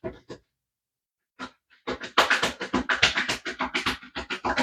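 A deck of tarot cards being shuffled: quick, crisp clicks of card edges, a brief run at the start, a lone click, then a fast continuous run of clicks from about two seconds in.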